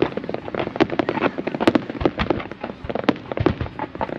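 Fireworks display: a dense, unbroken run of overlapping bangs and crackling bursts, many per second.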